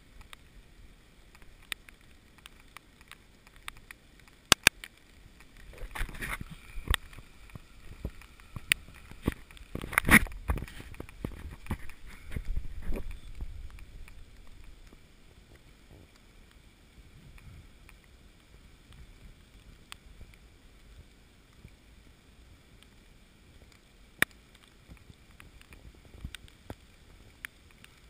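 Rustling and footfalls of someone moving through wet forest undergrowth, busiest in the middle stretch, with a few sharp snaps standing out, the loudest about ten seconds in.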